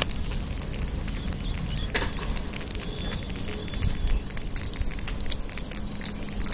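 Running water splashing and spattering as a man washes his face with his hands. A steady crackly patter of droplets sits over a low rumble.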